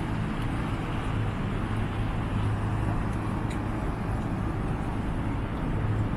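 Street traffic: a van and then a car drive past on wet asphalt, with tyres hissing, over a steady low hum.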